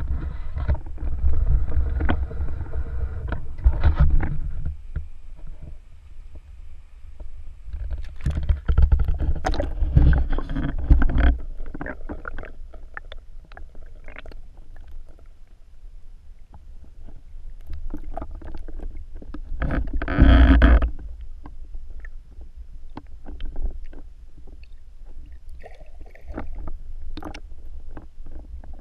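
Water sloshing against an action camera's waterproof housing held at and under a river's surface, heard muffled through the case: a steady low rumble with many small knocks and several louder swashes, the loudest about twenty seconds in.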